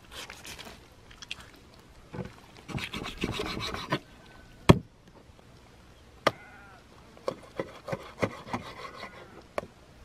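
Rough rubbing and scraping in two spells, then one sharp knock and a run of lighter clicks and taps.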